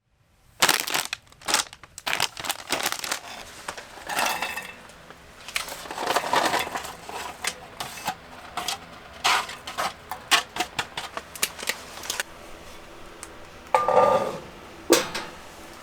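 Irregular clattering and clicking of hard objects: a dense run of sharp knocks and scrapes, with two louder knocks near the end.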